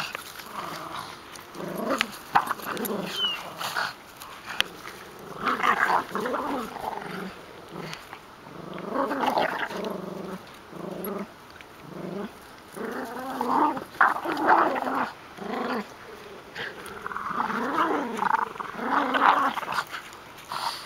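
Small dogs growling during a tug-of-war over a deflated soccer ball, in rough bouts of a second or two, over and over.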